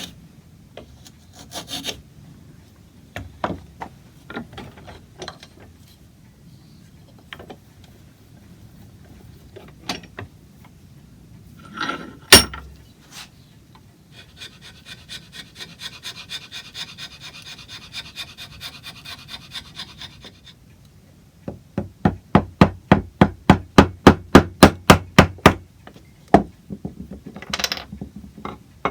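Hand tools working on wood. There are scattered scrapes and clicks, a sharp knock about twelve seconds in, a stretch of steady rasping strokes, and then a run of quick, loud taps, about four a second.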